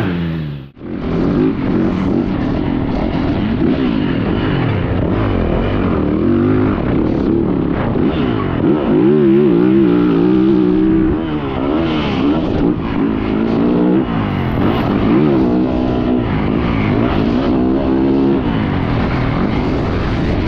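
Yamaha YZ450F motocross bike's single-cylinder four-stroke engine revving up and down under hard riding, its pitch rising and falling with throttle and gear changes. The sound drops sharply and briefly under a second in.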